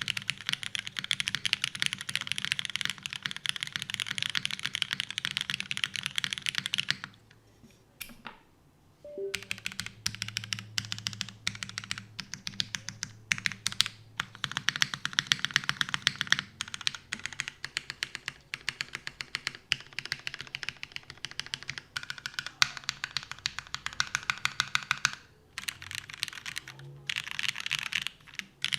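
Custom mechanical keyboard with lubed Cherry MX Black linear switches, an aluminium plate and GMK keycaps, typed on fast and continuously. There is a pause of about two seconds some seven seconds in, and a couple of brief stops near the end.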